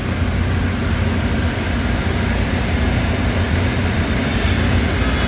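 Steady mechanical drone of running machinery, with a strong low rumble and an even hiss above it.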